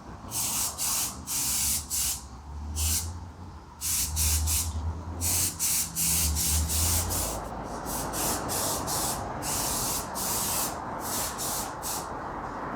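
Aerosol can of 2X spray primer hissing in many short bursts, about one or two a second, each a fraction of a second long, as a model airplane fuselage is primed.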